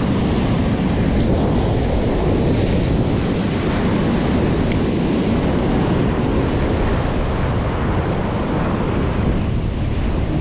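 Strong wind buffeting the action camera's microphone, mixed with heavy surf breaking on the rocks: a loud, steady noise.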